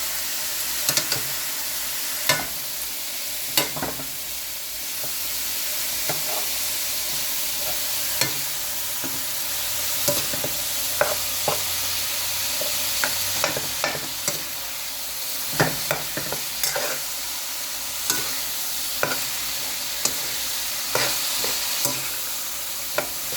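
Pieces of beef sizzling as they fry in a hot pot, with a spoon stirring them and knocking and scraping against the pot in short, irregular clicks.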